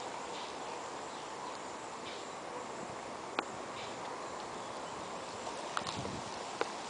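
A few scattered footsteps, sharp short steps that come more often near the end, over a steady background hiss.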